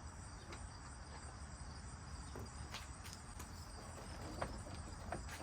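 Insects chirping in a steady high drone, with a few faint clicks.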